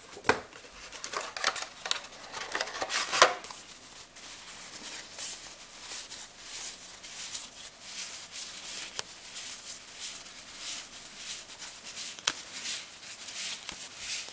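A stack of cardstock journaling cards handled and flipped through by hand: papery rustling and light clicks as the cards slide against each other, with a few sharper clicks in the first three seconds as they are lifted from the kit's box.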